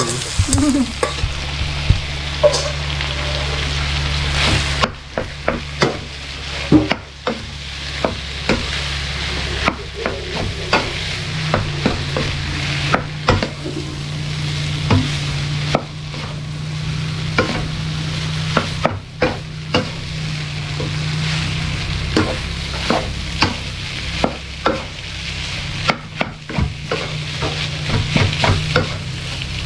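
Rice frying in a wok, sizzling steadily while a wooden spatula stirs and tosses it, the spatula knocking and scraping against the pan again and again.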